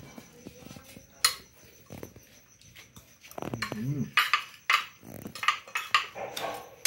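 Metal cutlery clinking and scraping on a glass plate of food as it is cut and stirred. The clicks are sharp and irregular: one loud click about a second in, then a busy run of clinks from about four seconds in. A short low voiced sound comes just before that run.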